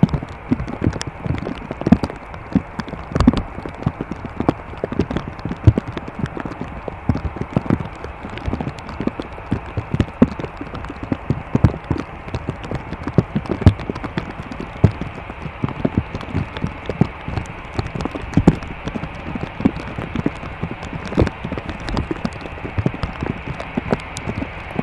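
Raindrops tapping irregularly on a hard surface close to the microphone, over a steady rushing background noise.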